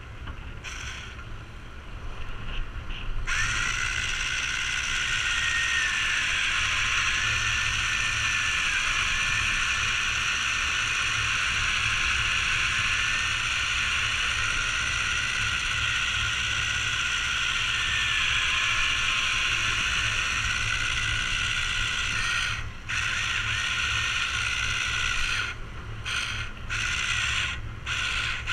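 Fishing reel's gears whirring steadily with a slightly wavering pitch, starting about three seconds in, then stopping and starting several times near the end.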